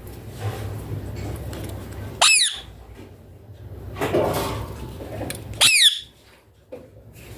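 Indian ringneck parakeet giving two short, shrill calls about three and a half seconds apart, each rising then falling in pitch, with a brief rustling noise between them.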